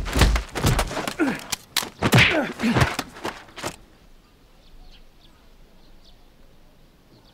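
A quick struggle: shuffling footsteps on a dirt yard and a rapid run of thuds and sharp knocks for the first few seconds, the heaviest thud at the start, then it drops to a faint background.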